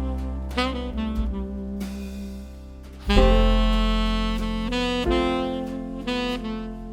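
Background jazz music with a saxophone lead over bass, a new phrase swelling in about three seconds in.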